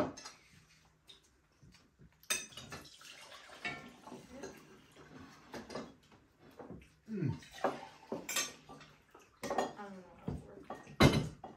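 Forks and knives clinking and scraping on ceramic plates as several people eat at a table, with scattered sharp clinks and a louder knock near the end.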